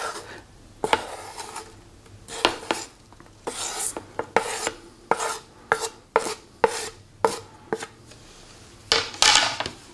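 A wooden spoon scrapes chopped green onions off a cutting board into a glass bowl of mashed potatoes, making about a dozen short, irregular scrapes and knocks, with a longer scrape near the end.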